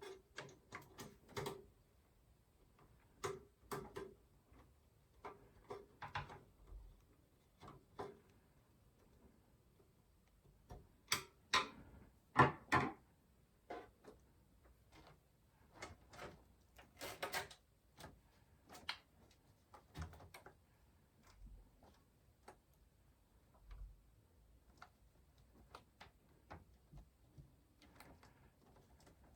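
Scattered clicks, taps and light knocks of PC hardware being handled while a graphics card is fitted into a desktop case, loudest in a cluster of knocks about eleven to thirteen seconds in and again around seventeen seconds.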